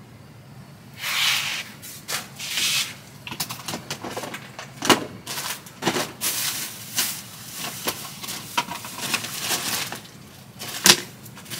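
Rummaging through a plastic storage bin: a couple of rustling bursts, then irregular clicks, knocks and rubbing as items are moved about. The sharpest knock comes near the end.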